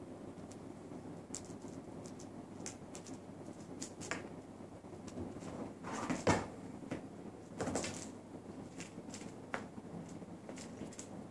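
Scattered light taps and scrabbling of a British Shorthair kitten at play, its paws and claws on the rug, the wooden floor and the sofa's fabric. Two louder thumps come a little past halfway as it scrambles up onto the sofa and back down.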